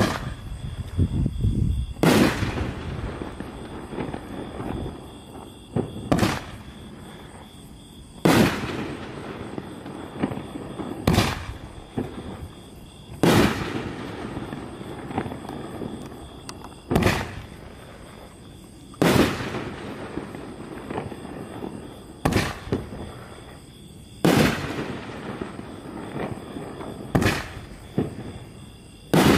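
A 3-inch consumer fireworks cake firing its shells one by one: each launch thump is followed about two seconds later by a louder bang as the shell bursts, and each bang trails off in echo. A new shell goes up roughly every five seconds.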